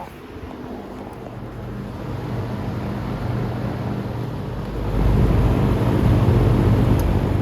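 Vintage Pencrest 100 three-blade metal box fan running: a steady low motor hum under a rush of air. The rush grows louder about five seconds in.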